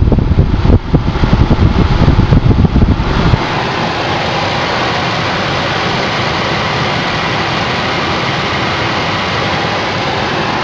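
Newly installed cabin blower fan of a Ford Focus running on its highest setting, a steady rush of air through the vents. For about the first three seconds the airflow also buffets the microphone with an uneven low rumble, which stops suddenly.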